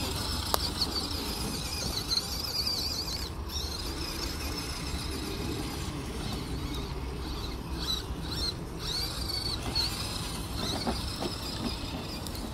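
High-pitched motor and gear whine of small electric RC crawler trucks, a Traxxas TRX-4M among them, wavering up and down and coming and going with the throttle. A steady low rumble runs underneath.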